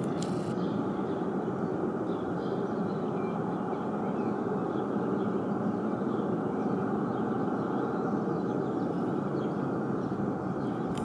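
Ariane 5 rocket engine on a test stand, heard from a distance as a steady, unbroken roar during a test firing. Faint bird chirps sound over it.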